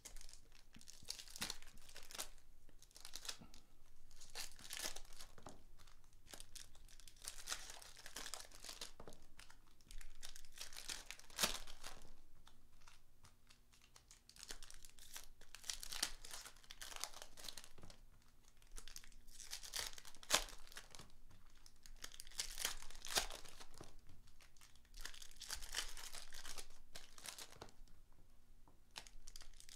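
Hands working through 2019 Upper Deck Goodwin Champions trading cards and their foil pack wrappers: foil crinkling and tearing, and cards shuffled and slid onto stacks. The sound comes as a series of short rustles and crinkles, each lasting one to two seconds.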